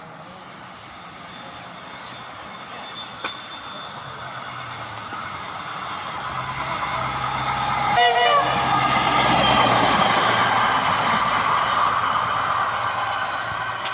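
Train approaching and passing close by. The noise of the train builds steadily, then a short, single horn blast sounds about eight seconds in, at the loudest point. The rushing wheel noise and a steady low hum carry on after it.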